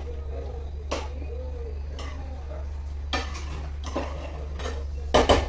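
Spoon knocking and scraping against a nonstick frying pan while stirring penne into white sauce, about once a second, with a louder clatter of two or three knocks near the end. A steady low hum runs underneath.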